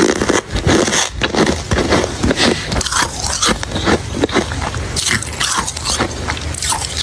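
Close-miked biting and chewing of ice: a rapid, irregular run of sharp, crisp cracks and crunches.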